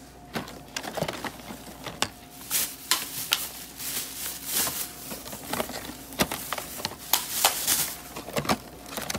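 Plastic shopping bag rustling and crinkling in irregular bursts as it is handled, over a faint steady hum.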